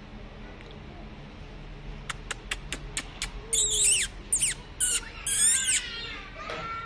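A few sharp clicks, then a Cane Corso puppy whining in high, squeaky cries that slide down in pitch, several in a row, as it begs for a treat held above it.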